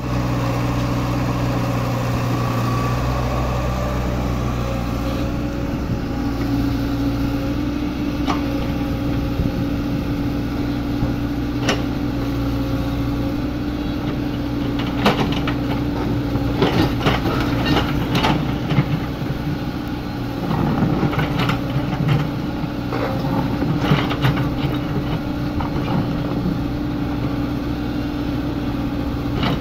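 Komatsu PC75UU excavator's diesel engine running steadily while digging. From about halfway through, repeated sharp knocks and clanks from the working bucket and arm.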